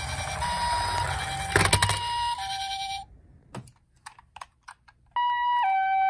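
Toy HIMEDIC ambulance's electronic two-tone "pee-po" siren, stepping between a high and a low tone about every two-thirds of a second, over the rumble of its wheels rolling down a wooden board. There is a loud knock about a second and a half in, and the siren stops about three seconds in. After a couple of seconds of light plastic clicks, another toy ambulance's two-tone siren starts near the end.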